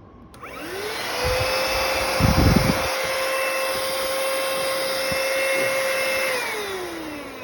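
Cordless handheld car vacuum cleaner switched on: its motor whines up to speed, runs steadily with a high whine, then is switched off about six seconds in and winds down in falling pitch. A few low thuds about two seconds in.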